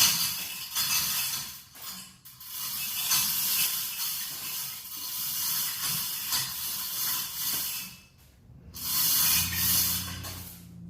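Hand-operated chain fall (chain hoist) being pulled under heavy load, its chain and ratchet clicking rapidly in long runs with brief pauses. A low steady hum comes in near the end.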